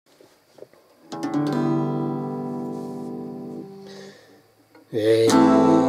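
Yamaha JR1 steel-string acoustic guitar: a chord strummed about a second in and left to ring and fade away, then after a short pause a second chord strummed loudly near the end, starting the song.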